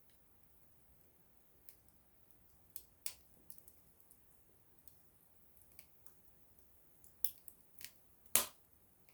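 Small wood fire crackling: sparse, irregular sharp snaps and pops over a quiet hiss. The loudest is a slightly longer pop near the end.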